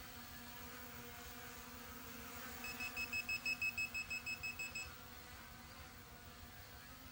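E88S quadcopter's brushless motors humming steadily in flight. Near the middle comes a fast run of high electronic beeps, about seven a second for about two seconds, the loudest sound here.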